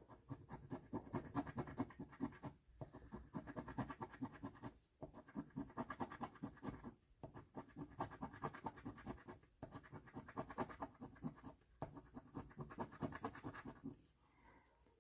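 Scratch-off lottery ticket being scratched, rapid scraping strokes in runs of a couple of seconds with brief pauses between them, stopping about a second before the end.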